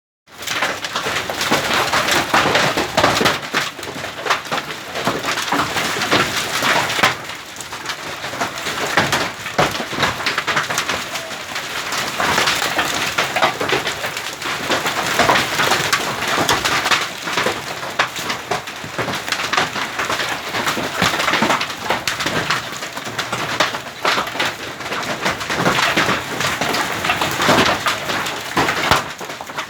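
Hail falling with rain, hailstones clattering thickly and continuously on hard surfaces.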